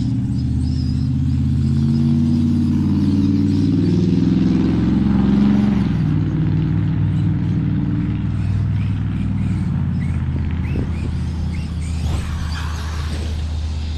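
Electric RC trucks running, a steady motor and drivetrain hum that wavers in pitch as they speed up and slow down, with a few short knocks near the end.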